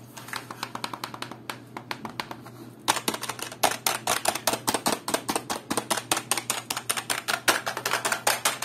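Keys of a Rampage KB-R221 mechanical-feel keyboard being pressed rapidly by hand, a quick run of plastic key clicks. The clicks grow faster and louder about three seconds in.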